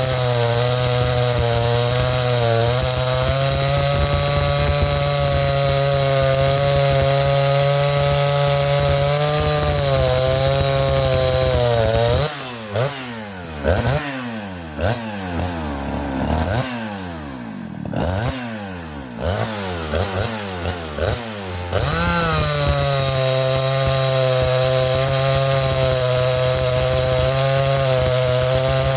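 Chainsaw engine held near full throttle, cutting through fresh-cut white oak, its pitch wavering slightly under load. About twelve seconds in it eases off and is revved up and down several times for about ten seconds. It then goes back to steady high revs in the cut.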